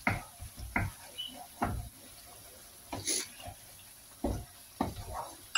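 Wooden spatula stirring a watery chicken curry in a non-stick pan: irregular scraping strokes and soft knocks against the pan, roughly one a second, with the wet sauce sloshing.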